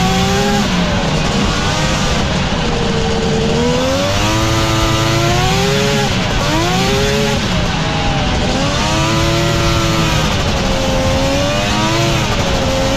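Two-stroke engine of a track-equipped X3 side-by-side, heard from on board while it is driven, revving up and dropping back again and again, about five times.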